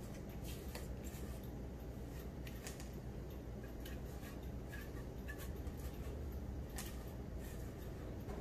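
Thick batter being poured from a glass bowl into a glass baking dish: a few faint scattered clicks and light taps over a steady low hum.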